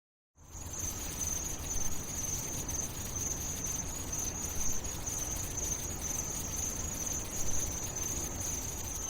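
Crickets chirring steadily, one constant high-pitched trill over a low background hiss, starting about half a second in.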